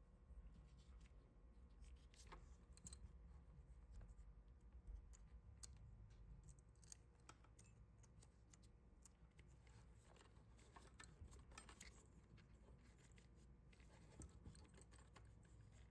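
Near silence with faint, scattered clicks and scratches of small parts being handled during a switch repair.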